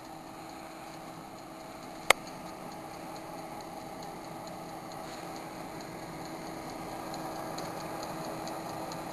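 Sunpentown countertop convection oven running: its fan makes a steady whirring hum, with faint rapid ticking from the mechanical timer in the second half. A single sharp click sounds about two seconds in.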